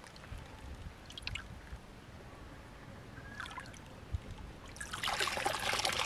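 Faint water sloshing and small splashes as a woven bamboo basket is swished in a shallow stream. About five seconds in, water pours out through the basket as it is lifted, splashing loudly into the stream.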